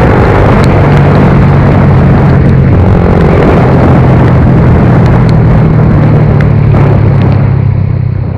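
Suzuki GSX-R125's single-cylinder four-stroke engine running steadily while riding, under loud wind rush; the engine note shifts in pitch about a second in and again around four seconds in.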